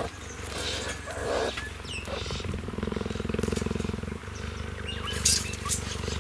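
Cheetah purring steadily, a fast even pulsing, in contentment while being groomed by meerkats. A sharp click about five seconds in.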